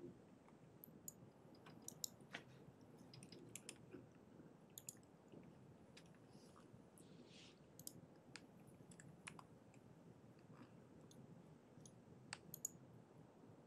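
Near silence: faint room tone broken by a dozen or so short, faint clicks at irregular intervals, with a soft rustle about seven seconds in.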